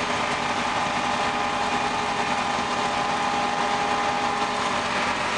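John Deere 3300 combine running steadily, heard from inside the cab: an even machinery drone with a constant whine.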